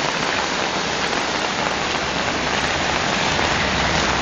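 Steady hiss of water on a flooded road, with a saloon car wading through the floodwater and pushing a wave aside as it passes close by. A low rumble grows stronger in the second half.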